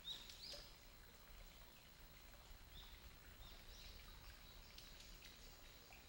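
Faint, scattered bird chirps and short calls: a couple right at the start, then more spread through the middle, over a quiet woodland background hiss.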